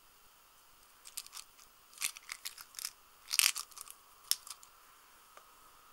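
Small plastic tin of Dynamit Nobel 4mm Flobert rimfire cartridges handled and its snap lid worked open: a run of sharp plastic clicks and scrapes, the loudest about three and a half seconds in.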